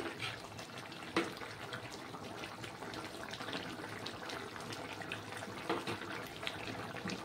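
Fish curry gravy bubbling in a pan on the stove, a steady hiss with many small pops. There are a couple of sharper knocks about a second in and near the end, likely from the metal spatula against the pan.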